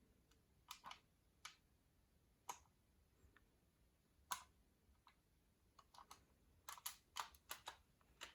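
Faint, scattered clicks and taps of a folded-paper toy being handled and reshaped, irregularly spaced and coming more often in the second half.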